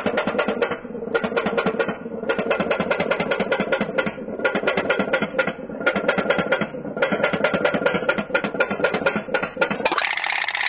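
Tin pop pop boat's candle-heated steam engine running: a rapid, continuous train of popping clicks, with a few brief breaks. Near the end it cuts off suddenly and a different, steadier sound takes over.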